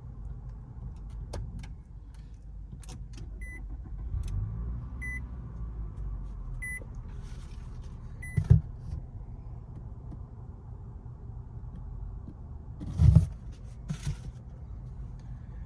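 A car's warning chime beeps four times, evenly spaced about a second and a half apart, over a steady low rumble, with scattered clicks and two louder thumps.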